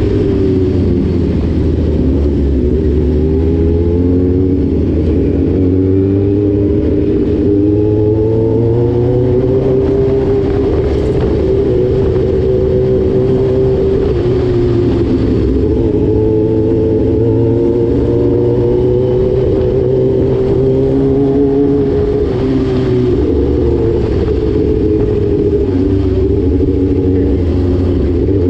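Motorcycle engine running under way as heard from the bike, its pitch climbing and dropping back several times as the rider accelerates and eases off.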